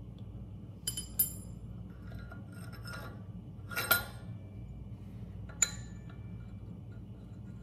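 A cut steel rod and bolt clinking against the generator rotor as the rod is slid into the rotor's bore and the bolt is started by hand. A few separate light metallic clinks, each ringing briefly: two close together about a second in, one near the middle, and a sharp one later.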